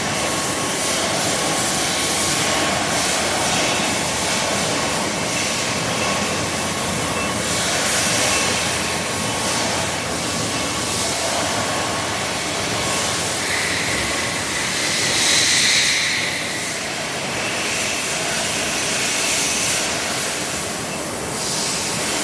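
Metalworking workshop machinery running: a steady hiss-like mechanical noise with a faint steady whine, growing briefly brighter about fifteen seconds in.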